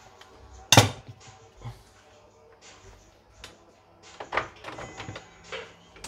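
A few separate knocks and clatters of the plastic body and embroidery unit of a portable computerized embroidery machine being handled on a bench, the loudest about a second in.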